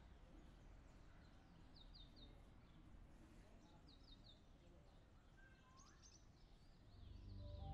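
Faint outdoor ambience with a small bird repeating a phrase of three quick falling chirps about every two seconds, and a few other high calls near the end. Soft sustained music fades in just before the end.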